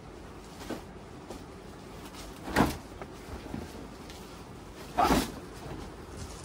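Packed bed sheet being opened and handled: two short, loud swishes of cloth and packaging about two and a half seconds apart, with faint rustles and ticks between them.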